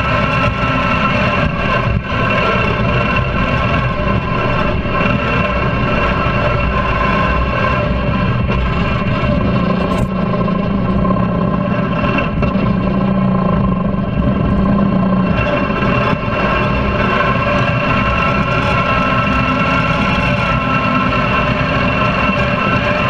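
Mud-modified lawn tractor's small petrol engine running steadily as the tractor drives through mud, heard close up from a rear-mounted camera. Its low note is heavier for a few seconds in the middle.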